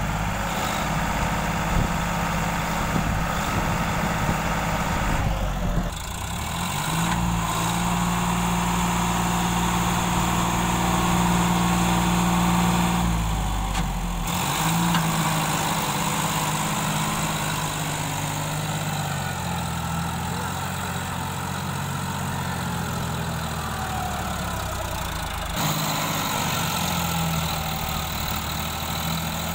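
Sonalika tractor's diesel engine running under load as it tows a loaded trailer through deep mud. The steady engine note shifts pitch abruptly several times.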